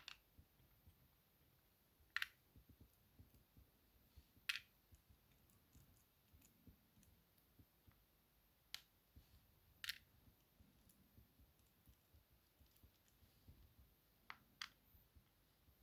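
Small metal lock discs and spacer wafers set down one by one on a table: about seven faint, sharp clicks at irregular gaps of one to four seconds.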